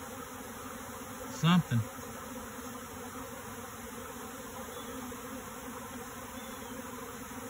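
A honeybee swarm buzzing steadily as the bees fly around and settle on a hive box.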